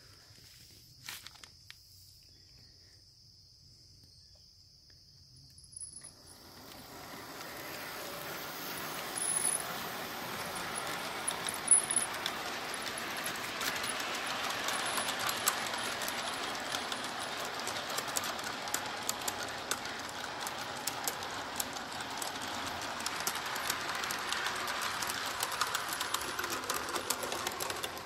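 G-scale garden model train rolling past on outdoor track, its wheels rattling and clicking over the rails. It comes in about six seconds in, swells as the train nears, and stays loud while the cars go by.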